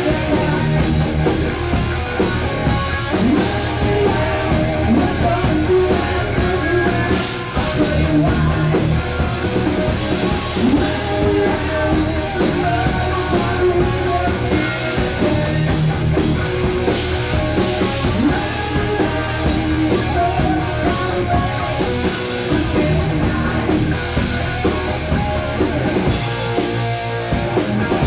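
Raw rehearsal recording of a hard rock band playing: electric guitars over bass and drum kit, steady and loud.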